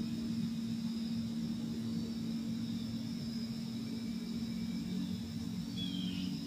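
A steady low engine-like hum, with faint thin high tones above it and a short falling chirp near the end.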